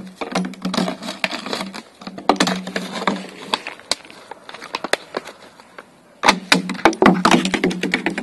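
An empty plastic bottle crackling and crinkling as a podenco puppy carries and bites it, in dense bursts of sharp clicks about two seconds in and again near the end, with single clicks between.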